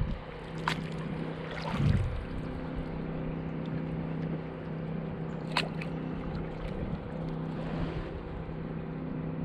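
Kayak paddling: a double-bladed paddle dipping and lifting, with a few short splashes and drips of water off the blades, over a steady low hum.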